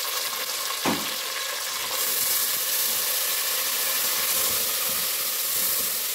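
Tomatoes and spices sizzling in hot oil in a pot, with a knock about a second in. From about two seconds in, a splash of water hits the hot oil and the sizzle turns into a louder hiss of steam as a spatula stirs.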